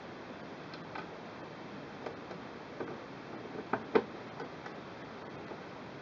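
A few light clicks and taps as the bottom panel of a Singer Quantum Stylist 9960 sewing machine is pressed and shifted into place by hand. The loudest pair comes a little before four seconds in.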